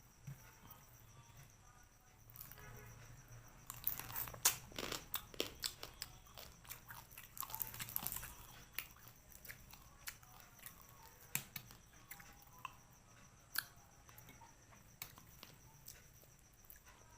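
Close-up eating sounds: a person chewing and crunching through spicy crab and fish-head curry with rice, with a dense run of crisp crunches and cracks in the middle, then scattered smacks and clicks.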